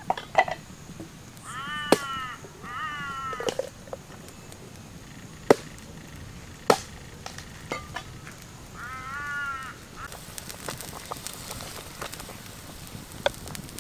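Three short animal calls, each a quick run of rising-and-falling notes, twice close together early and once more about nine seconds in, between sharp knocks and taps. From about ten seconds in, a steady hiss from a pot of chicken boiling over a wood fire.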